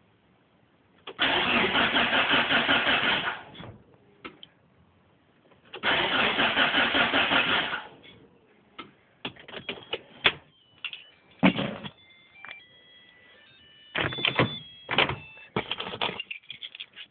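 Mitsubishi Evolution's starter motor cranking the engine twice, about two seconds each time, with an even pulsing rhythm. The engine turns over but does not fire: a no-start, with a new battery fitted. Scattered clicks and short high beeps follow.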